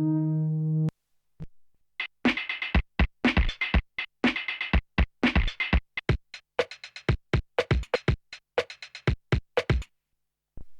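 Arturia MicroFreak synthesizer: a held chord cuts off about a second in, then a percussive drum-like preset plays a fast rhythmic pattern of short hits, some with a deep thump, for about eight seconds.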